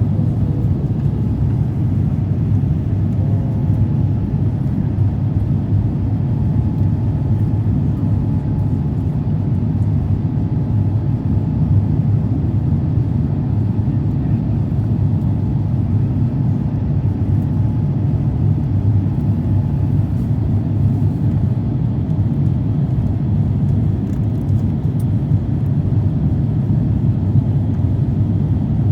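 Steady low rumble of an airliner cabin in flight: engine and airflow noise, unchanging throughout, with a faint thin whine through the middle.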